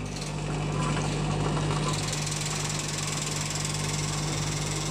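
Biscuit packaging machinery running with a steady low hum under an even, constant noise.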